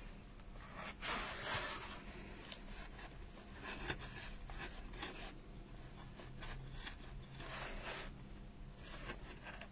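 Faint scratching and rubbing as felt is pushed with a small metal tool into the grooves of a polystyrene foam pumpkin, in a few short strokes.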